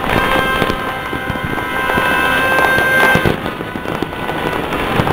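Many fireworks and firecrackers going off at once across a city: a dense, continuous crackle of pops and bangs, loudest about three seconds in, with several steady held tones underneath.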